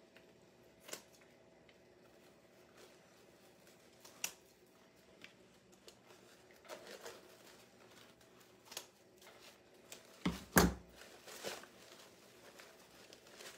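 Scissors snipping ribbon a few separate times, with soft rustling of ribbon and mesh being handled. About ten seconds in comes a louder knock on the work table.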